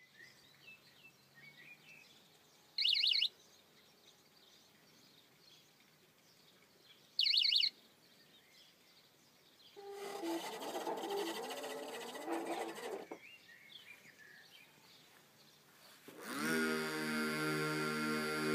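Robomow robotic lawn mower: two short warbling electronic beeps a few seconds apart, then about ten seconds in a few seconds of motor noise. Near the end its motor whines up and settles into a steady hum. Birds chirp faintly in the background.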